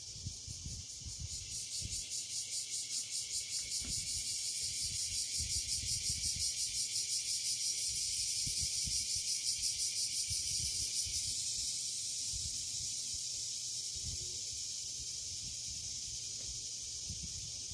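Cicadas buzzing in a high chorus that pulses a few times a second, swelling in the middle and then going on more evenly. Low irregular rumbles of wind or handling sit underneath.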